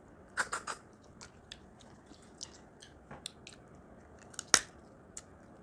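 Crab and shrimp shells from a seafood boil cracking and snapping as they are pried open and peeled by hand, in scattered sharp clicks, with eating sounds close to the microphone. The loudest cracks come about half a second in and again a little after four and a half seconds.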